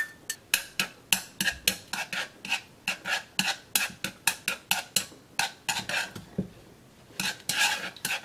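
Wooden chopsticks clicking and scraping against the bottom of a nonstick wok, about four to five taps a second, while spreading minced garlic through cold oil. The tapping pauses for about a second near the end, then resumes.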